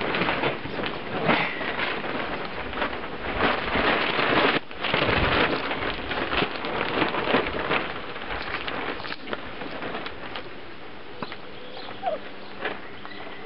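Three-week-old puppies suckling at their mother, a dense wet crackling and smacking that is busiest in the first half and dies down after about eight seconds. A short rising squeak near the end.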